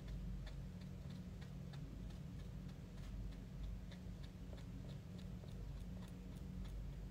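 Felt-tip marker tip tapping on watercolour paper as dots are dabbed in, making faint ticks about two to three a second over a low steady hum.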